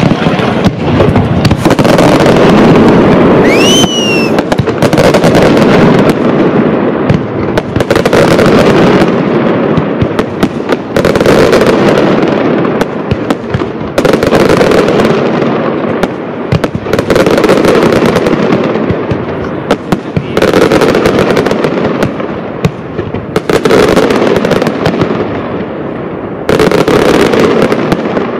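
Pirotecnia Caballer FX castillo fireworks display: a continuous, loud barrage of aerial shell bursts and crackle, surging in waves about every three seconds. A rising whistle cuts through about four seconds in.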